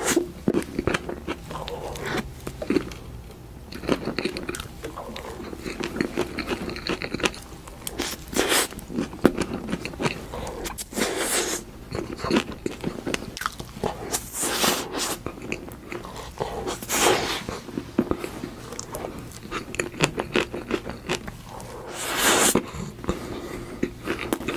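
Close-up chewing and biting sounds of a person eating soft cream cake with chopsticks: many small clicky mouth sounds, with louder noisy bites every few seconds.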